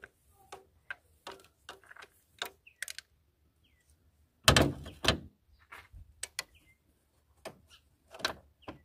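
Irregular clicks and knocks of hand tools and engine parts being handled while bolts are undone on a car engine. Two loud clunks come about four and a half and five seconds in, and another comes near the end.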